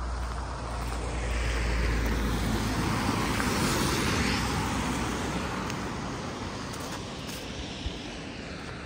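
A car driving past, growing louder to a peak about four seconds in and then fading away.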